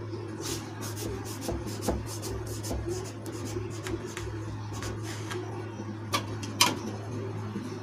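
Knife blade drawing through a tray of crumbly mysore pak, a dry scraping and crackling against the metal tray, with two sharper clinks about six seconds in as the knife is dipped in the bowl of water.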